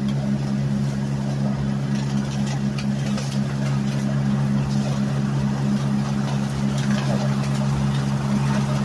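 Gator utility vehicle's engine running steadily, an even low hum that holds the same pitch throughout.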